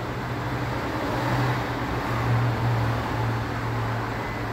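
Steady low mechanical hum over a broad rushing noise, growing slightly louder about two seconds in.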